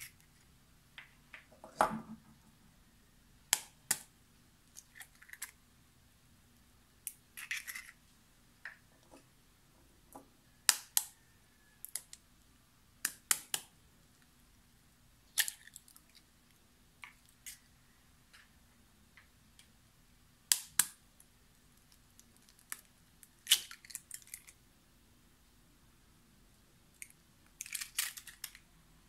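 Eggs tapped against the edge of a metal fork to crack their shells: sharp clicks, often two in quick succession, with short crackling bursts as shells are broken open. Four eggs are cracked one after another.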